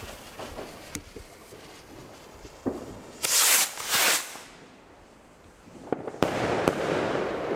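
Two Zink Z1 bouquet rockets: their lit fuses fizz and crackle, then two loud whooshing launches come about three seconds in, a fraction of a second apart. Near the end two sharp bangs half a second apart mark their bursts, followed by a lingering sizzle of the stars, white strobes with ruby red.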